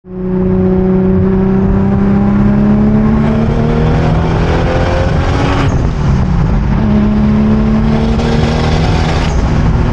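Nissan Cefiro's swapped 2JZ-GTE turbocharged straight-six accelerating hard, heard from inside the cabin. The engine note climbs steadily, drops at a gear change about six seconds in, then climbs again.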